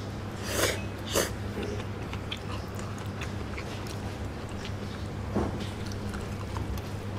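Ramen noodles slurped loudly twice in quick succession, with a third shorter slurp past the middle, and wet chewing clicks in between. A steady low hum runs underneath.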